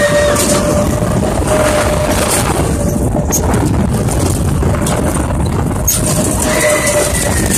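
Steady loud rumble and rush from inside a spinning cage of a Zipper carnival ride in motion. A thin steady whine comes and goes over it.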